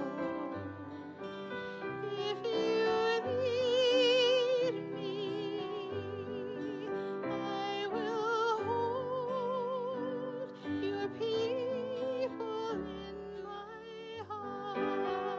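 Background music in a classical, operatic style: a singer holding long notes with strong vibrato over an instrumental accompaniment.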